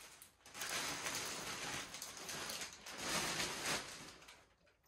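Plastic wrapping rustling and crinkling as a telescope mount head is handled and lifted out of a hard carrying case, in two long stretches with a short lull between them.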